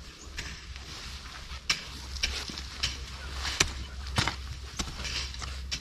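Hand hoe chopping into loose soil and scraping it along, about eight strikes at roughly one every two-thirds of a second, with gritty scrapes between.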